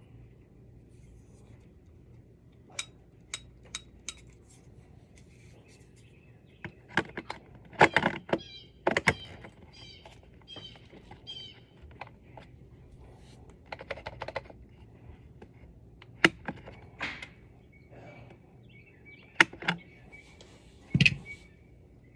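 Irregular clicks, taps and clatter of small hardware and hand tools being handled, loudest in a cluster about eight seconds in and again near the end, with birds chirping in the background.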